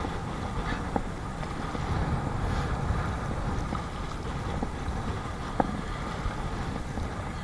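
Strong wind buffeting the microphone over water sloshing and splashing around a Perception Sound 10.5 kayak being paddled through whitecaps, with two sharp knocks, about a second in and again past the halfway point.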